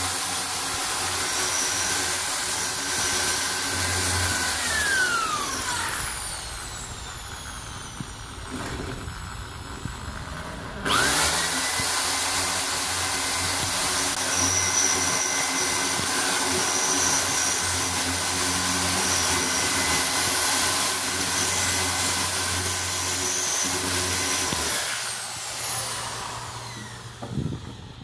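Electric drill boring into a brick wall. It slows with a falling whine about five seconds in, speeds back up with a rising whine around eleven seconds, then runs steadily until it winds down near the end.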